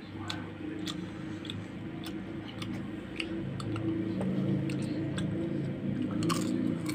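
Close-up chewing and eating sounds of people eating green mussels with their hands, with scattered sharp clicks over a steady low hum.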